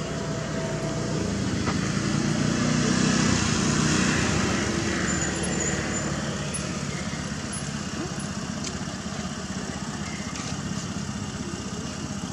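An engine running: a steady low hum that swells to its loudest about three to four seconds in and then eases off.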